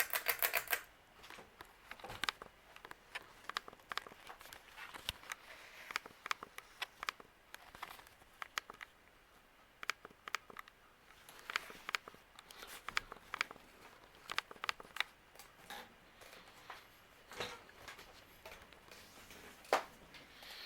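Ceiling fan pull-chain switched to medium speed: a quick run of chain and switch clicks in the first second. Then the 1995 Craftmade 42-inch Decorative fan runs quietly under scattered light clicks and crackles.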